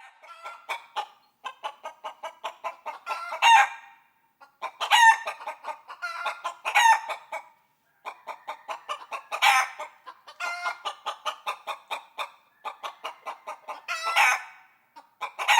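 Chickens clucking: rapid runs of short clucks, each building into a louder, drawn-out call, about six times over.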